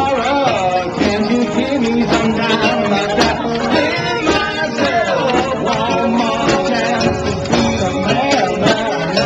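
A live street band of brass, reed and strings playing a lively tune: sousaphone, saxophone and a small strummed guitar.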